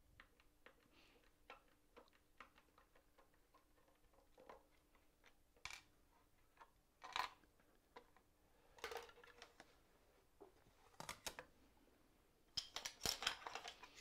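Faint clicks and light taps of small brass hinges and screws being handled and set into a wooden box, with a few louder taps and a quick run of them near the end.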